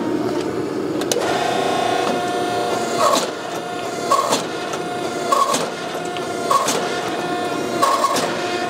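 Hydraulic forging press running, its pump whining steadily, with a pressing stroke about every second and a quarter as the flat dies squeeze a hot steel bar down to an even thickness.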